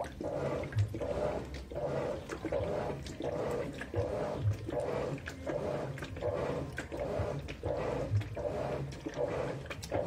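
GE 15 kg top-load washing machine agitating a load of towels in deep water: the motor hums in short strokes about one and a half times a second as the agitator swings back and forth, with water sloshing. A low thud comes every few seconds.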